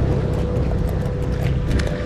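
Surf washing against the jetty rocks, with a steady low rumble under it and a few light taps near the end.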